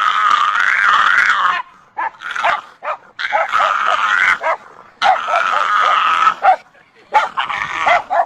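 A dog vocalising in long, wavering, howl-like whines, four stretches of about a second and a half each, with short yips and whimpers between them.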